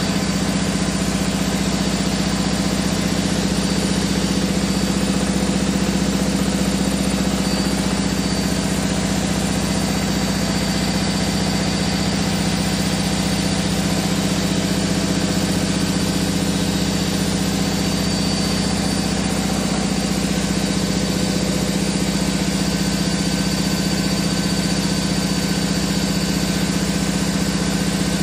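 Beko WRE6512XWWE washing machine spinning at the end of its cycle with 1000 rpm set, giving a loud, steady hum and vibration. This is the heavy vibration during spin that the owner has reported, which new shock absorbers, a new drum and new feet have not cured.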